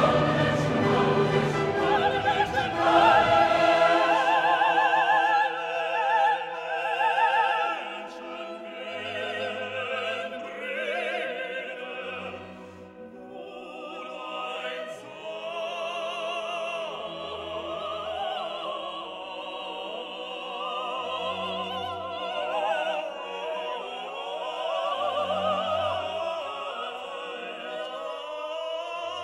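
Background music: a classical, operatic-style sung voice with vibrato over orchestral accompaniment. It is loudest in the first few seconds and settles softer from about eight seconds in.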